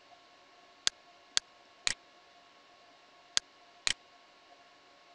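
Computer mouse clicking: five sharp clicks, three about half a second apart and then two more half a second apart, over a faint steady hiss.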